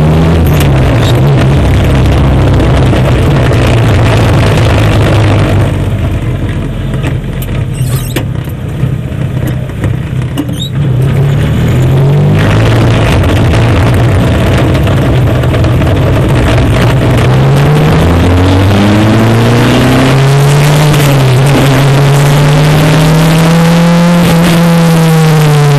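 Onboard sound of a single-seater racing car's engine pulling away, dropping quieter for several seconds about a quarter of the way in. From about two-thirds through it revs up steadily in pitch, then falls in pitch near the end as the car slows.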